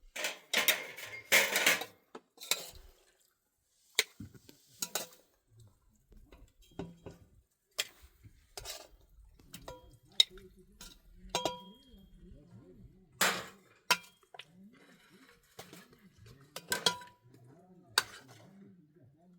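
Dishes and cutlery clinking and knocking together in a string of separate clinks, some ringing briefly, the loudest cluster near the start.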